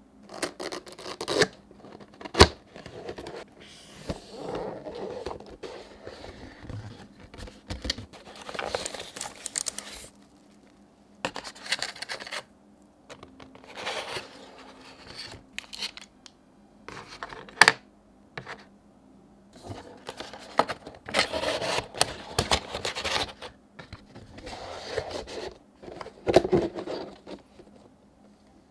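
Cardboard keyboard box being handled and opened: scraping, sliding and rustling in short bursts, with a few sharp knocks.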